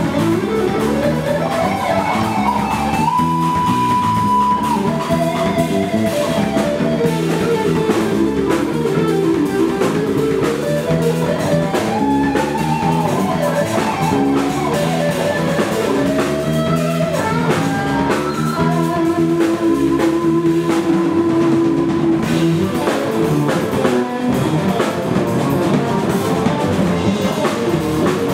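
Electric guitar lead played on a Music Man guitar over a drum kit and bass guitar, an instrumental rock jam. The guitar line moves through quick runs with a few long held notes, one high note a few seconds in and a long lower one about two-thirds of the way through.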